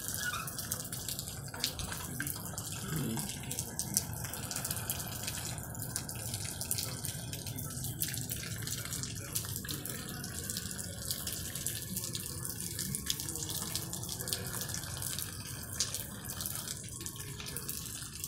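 Steady rain falling on wet pavement: a constant hiss dotted with many small drips and splashes.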